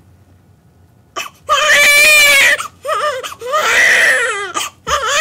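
Newborn baby crying: after about a second of quiet, two long wavering cries, with a third starting near the end.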